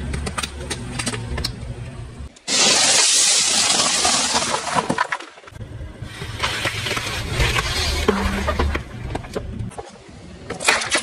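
A car's tyre rolling over and crushing small plastic objects one after another, with the engine running low underneath: crackling and crunching, a loud rushing burst about two and a half seconds in, and sharp cracks near the end. The sound jumps abruptly between separate crushes.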